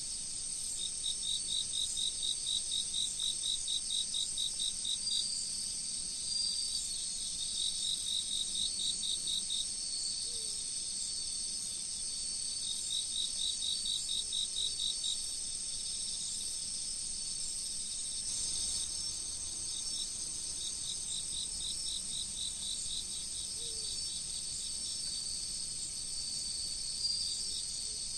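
Chorus of autumn crickets and other insects. A continuous high-pitched trill runs underneath, while another insect chirps in quick pulsed bouts of a few seconds, about five pulses a second, four times over with pauses between.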